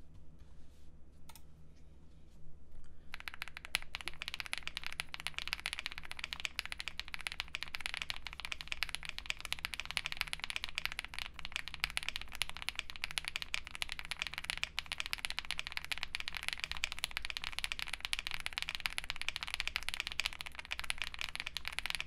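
Fast, continuous typing on a Wuque Mammoth75 mechanical keyboard with KTT Kang switches and GMK Lux keycaps, its sound shaped by a PE film fitted in the build. A few stray key presses come first, then steady rapid typing starts about three seconds in.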